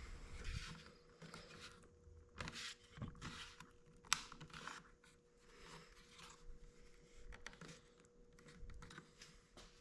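Faint plastic handling noises and light clicks as a dynamic LED turn signal is pushed into a car's side mirror housing, with one sharper snap about four seconds in as a retaining tab clicks into place.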